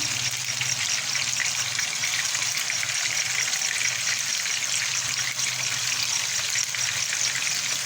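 Raw minced-chicken seekh kebabs frying in oil in a pan over a low flame: a steady sizzle with many fine crackles, over a faint low hum.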